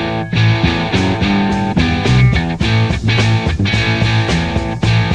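Instrumental psychedelic rock: electric guitar playing over bass and drums.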